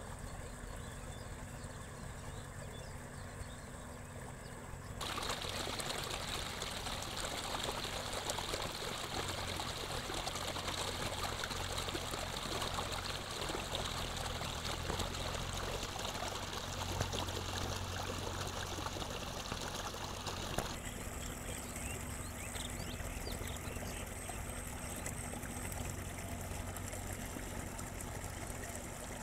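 Water running through a narrow channel cut in the earth, a steady rush that starts suddenly about five seconds in and turns softer after about twenty seconds.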